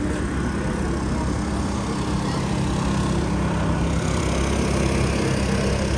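Steady city street traffic with the low, even hum of a vehicle engine running close by.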